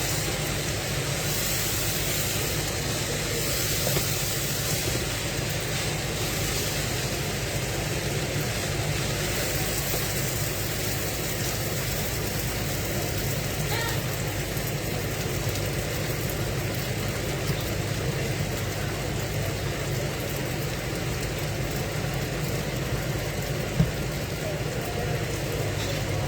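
Steady hissing of food cooking on the stove over a low hum, with a single sharp knock near the end.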